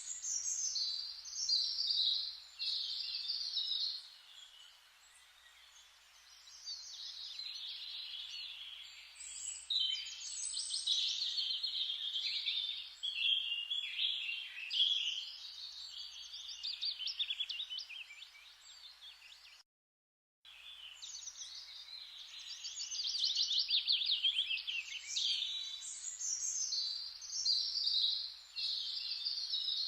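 Birds chirping and singing, several trilling songs overlapping, broken by a brief total dropout about twenty seconds in.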